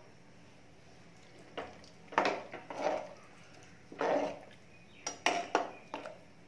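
Metal slotted spoon stirring a watery rice-and-vegetable mixture in an aluminium pressure cooker, scraping and clinking against the pot. It comes in several bouts, starting about one and a half seconds in.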